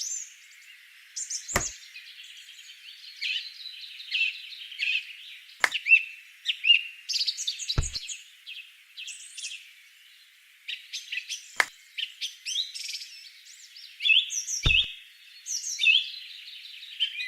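Several small birds chirping and twittering without a break, with five sharp knocks spread through it, the one about a second and a half in, the one near eight seconds and the one near fifteen seconds the loudest.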